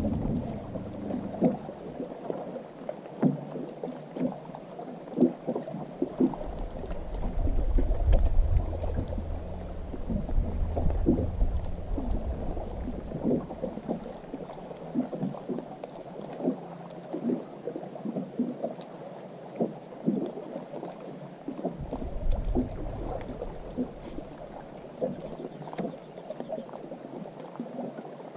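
Small waves lapping against the hull of a drifting bass boat, an irregular run of soft slaps and knocks, with a low wind rumble on the microphone coming and going.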